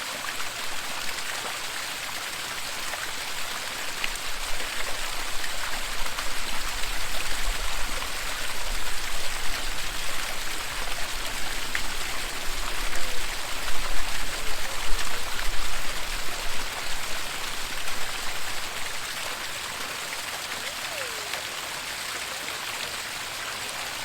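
Waterfall: a steady rush of falling water, with a low rumble swelling in through the middle and dropping away shortly before the end.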